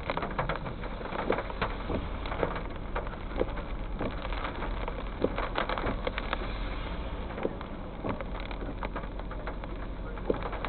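Rain falling steadily, with many irregular drops tapping sharply close by, over a steady low rumble.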